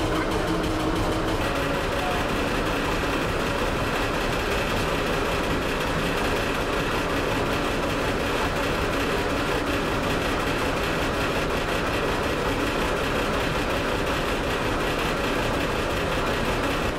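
Motor boat engine running steadily under way, a constant noise with a few steady humming tones and no change in level.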